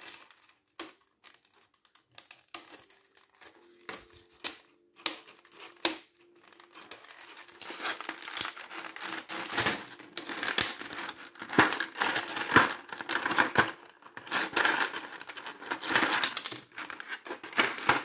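Clear plastic accessory bag crinkling as it is handled and pulled open by hand. Scattered light crackles and taps at first, then steady, louder crinkling through the second half.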